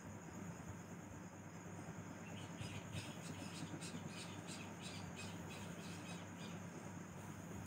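Faint steady hum and hiss with a thin high whine. From about two and a half seconds in until about a second before the end comes a run of short, high chirps or clicks, about three a second.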